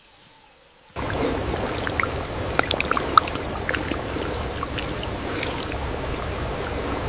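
Running water with scattered drips and splashes, cutting in suddenly about a second in.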